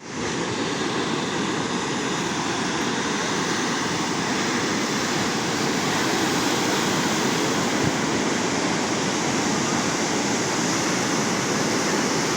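Ocean surf washing ashore: a steady rushing noise with no breaks.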